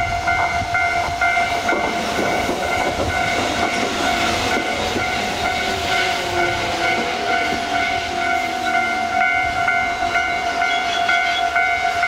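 Tobu Nikko Line train running over a level crossing, with rumble and rail noise and a whine that falls slowly in pitch, while the crossing warning bell rings steadily. The bell stops abruptly at the end.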